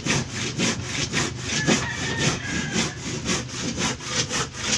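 Wood being cut with a hand saw in quick, even back-and-forth strokes, about four a second.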